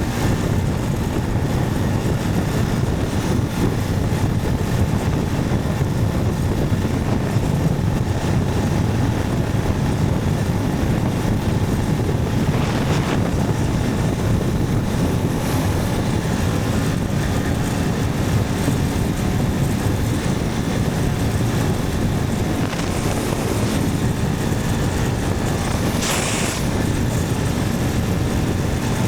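Motorcycle riding at a steady pace: engine running evenly under a constant rush of wind noise. Two short hisses, about halfway and near the end.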